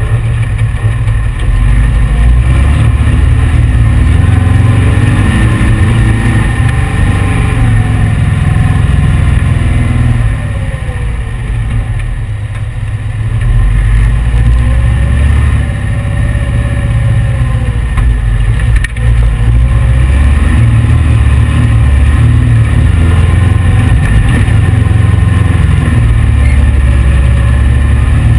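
1835 cc air-cooled VW engine of a heavy sand rail running under load, its pitch rising and falling as it revs up and eases off over the dunes, a car the owner finds too heavy for this engine. It goes softer for a few seconds near the middle, and there is a single knock at about 19 seconds.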